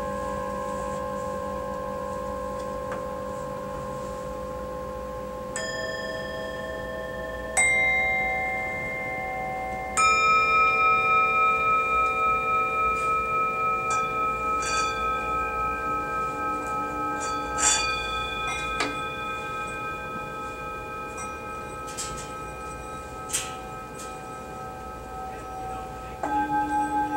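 Meditation bells or singing bowls struck one after another. Each rings on in a long, clear tone that overlaps the others. The loudest strike comes about ten seconds in, and its tone wavers steadily as it fades, with a few light metallic tinks later.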